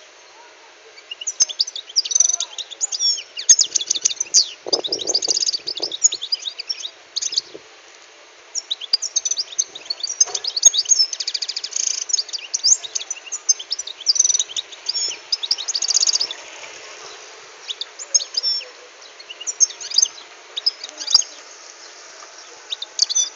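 A wild-caught European goldfinch (chardonneret) singing in its cage: fast twittering runs of high, tinkling notes in three long spells, with brief pauses about seven and seventeen seconds in.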